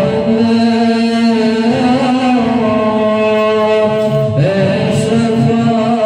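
A single voice chanting in long held notes, with slow turns in pitch and a brief break about four and a half seconds in.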